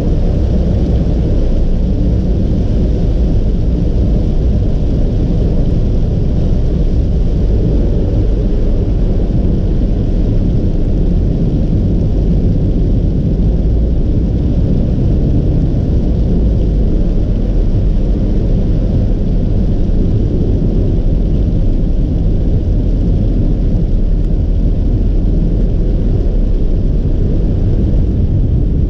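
Steady low rumble of a car driving on a wet expressway: tyre and road noise heard from inside the cabin.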